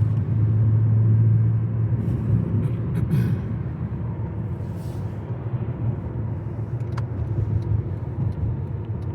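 Car driving, heard from inside the cabin: a steady low engine and road rumble, heaviest in the first couple of seconds, with a faint click or two.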